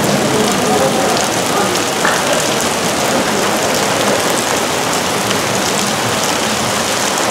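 Heavy rain pouring steadily onto pavement covered in standing water, drops splashing densely on the surface.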